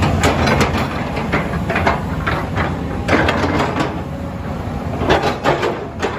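Excavator working: a steady engine rumble with irregular clanks and knocks throughout.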